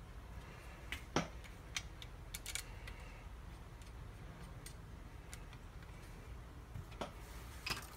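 Scattered light clicks and taps of small metal parts and tools being handled while a Timney trigger is fitted into a Ruger Precision Rifle's lower receiver, the sharpest about a second in and two more near the end.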